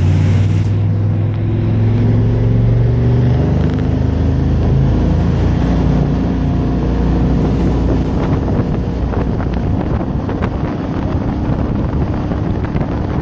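Jet boat's engine running at speed, a steady low drone that is strongest in the first half. From about two-thirds of the way in, wind buffeting on the microphone takes over.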